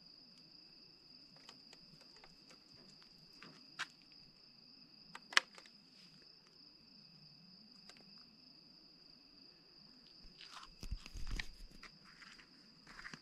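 Crickets chirring steadily in the night, a continuous high trill, with a few sharp clicks, the loudest about five seconds in. Near the end come footsteps and rustling handling noise.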